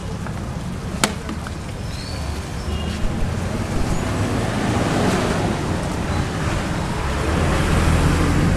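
Noisy street ambience of a large crowd walking in a procession, with a steady low rumble and a sharp click about a second in; the noise grows louder toward the end.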